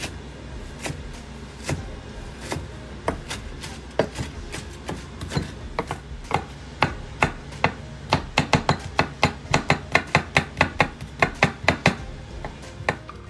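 Chef's knife chopping fresh herbs and garlic on a wooden cutting board: scattered chops at first, then a quick steady run of about four chops a second from about eight seconds in until shortly before the end.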